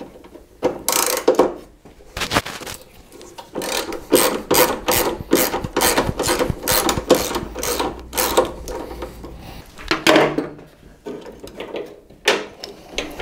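Hand socket ratchet clicking in quick back-and-forth strokes, loosening the ground-wire bolt on the truck body; a steady run of about three strokes a second in the middle, with a few single strokes before and after.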